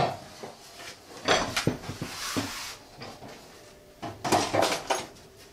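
Scattered clunks, knocks and clicks with a short scrape, as a laptop and its cable are handled on a steel workbench and plugged in.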